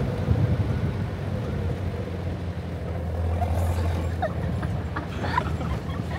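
Off-road 4x4's engine running steadily as it drives across beach sand, with a few short, faint voices in the second half.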